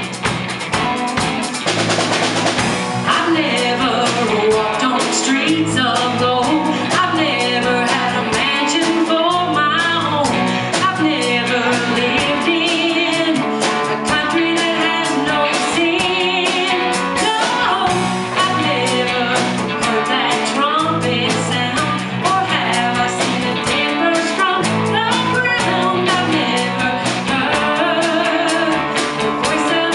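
Live rock band playing, with drum kit and guitar, and voices singing over the band from about three seconds in.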